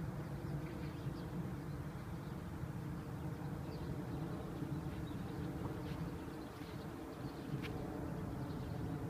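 A steady low mechanical hum, like a running engine, with a few short, faint, high bird chirps and a single sharp click near the end.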